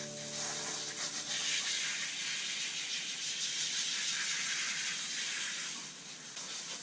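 Water spraying in a steady hiss, as when a dog is rinsed during a bath.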